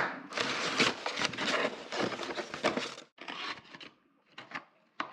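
Crackling, scraping handling noise for about three seconds, then a few sharp clicks and knocks.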